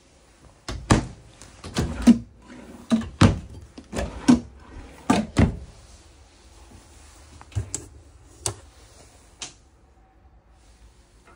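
Wooden cabinet doors being knocked and shut: a string of hollow thuds, several in quick pairs, in the first half, then a few lighter knocks.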